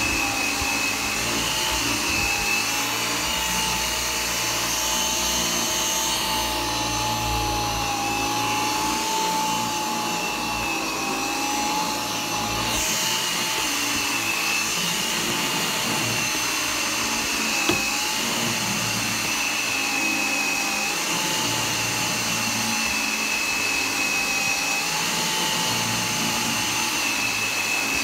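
G-Tech AirRam 2 cordless upright vacuum cleaner running while vacuuming carpet: a steady motor whine whose pitch wavers slightly up and down. One brief click about two-thirds of the way through.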